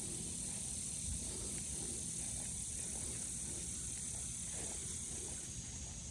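Steady high-pitched insect chorus outdoors, with a low rumble underneath.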